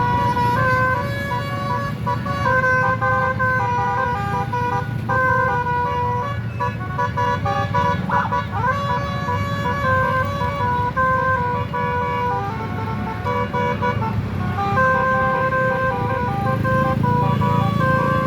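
Telolet bus horn: a set of multi-tone air horns playing a tune of held notes that step from pitch to pitch, over the low rumble of engines and road traffic. About eight seconds in, a short sliding sweep in pitch cuts across the tune.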